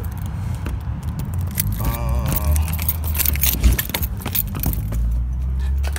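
Steady low vehicle engine and road rumble with keys jangling and rattling, heard from inside the vehicle.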